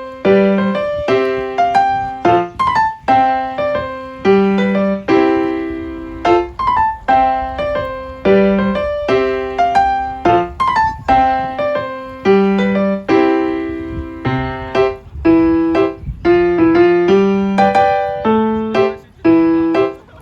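Background music: a light piano or electric piano tune of repeated struck notes at a steady, even pace.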